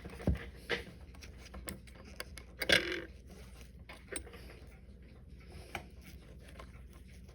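Small metal clicks and taps of watchmaker's tools and watch parts being handled on a workbench. A sharp knock comes near the start and a brief louder clatter a little under three seconds in, with scattered light clicks between.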